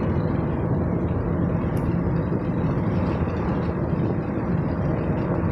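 Steady road and engine noise inside a moving pickup truck's cab, an even rumble with a low hum.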